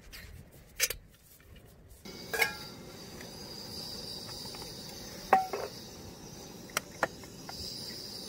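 A few sharp clinks and knocks, two of them ringing briefly like dishes or utensils touching, over a steady high chirring of insects that comes in about two seconds in.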